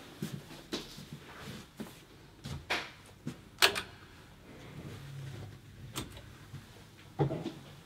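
Scattered footsteps, knocks and clicks of someone moving about and handling equipment in a small room, the sharpest click about halfway, with a brief low hum a little past the middle and a heavier clunk near the end.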